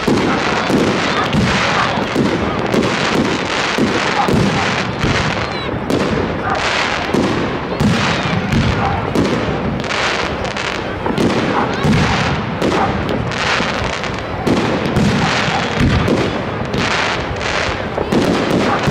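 Fireworks display: aerial shells bursting one after another in a rapid, irregular run of bangs and crackle.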